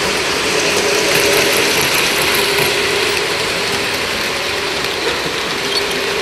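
O-gauge three-rail model train passing close by: the locomotive's motor and the cars' wheels on the metal track make a steady mechanical whir and rattle.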